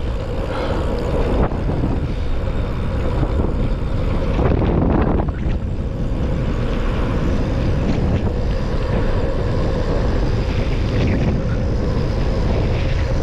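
Steady rush of wind buffeting the camera microphone as a gravel bike rolls fast downhill on pavement.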